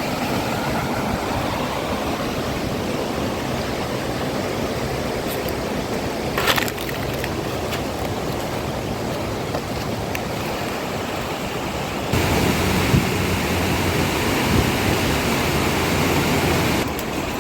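Steady rush of flowing river water, getting louder about twelve seconds in, with a brief knock about six and a half seconds in.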